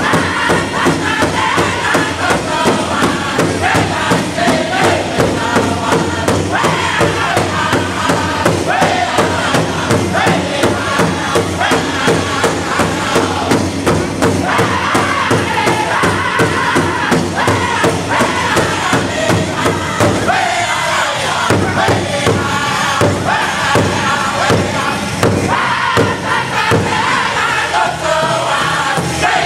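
Powwow drum group singing together in loud, high voices over a steady, even beat struck in unison on one large drum.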